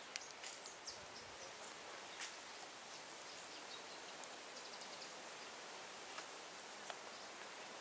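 Quiet outdoor ambience: a steady hiss with a few faint, short high chirps and ticks scattered through it.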